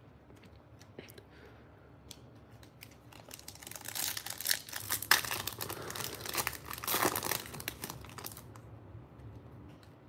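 Foil wrapper of a Panini Prizm card pack being torn open by hand, crinkling and crackling. It starts a few seconds in and is loudest in the middle, then dies down as the cards come out.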